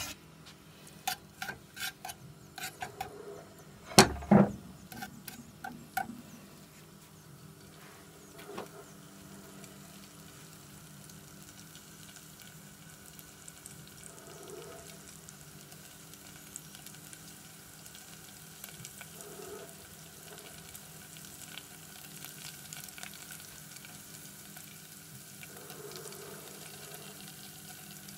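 Wood ear mushrooms frying in hot oil in a saucepan, spitting and popping: a quick run of sharp pops in the first six seconds, the loudest two about four seconds in, then a steady sizzle with only an occasional small pop.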